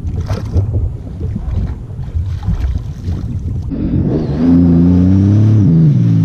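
Rough low noise of wind and water for the first three and a half seconds, then a jet ski engine running close by, a steady low note that rises slightly and drops back near the end.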